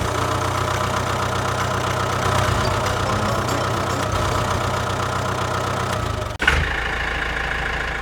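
An engine running steadily at idle, with an even low drone. It breaks off briefly with a short jolt about six and a half seconds in, then carries on.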